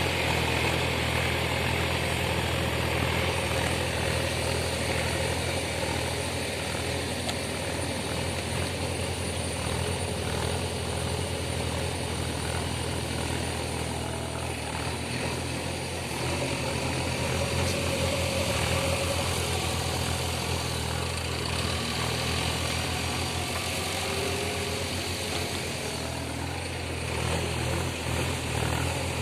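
Diesel engine of heavy construction machinery running steadily with a low, even hum.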